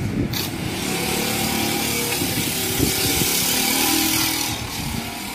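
Canon photocopier powering on: its fans and motors start running with a steady hiss about half a second in, then cut out about four seconds later. This is the machine's intermittent shutdown fault.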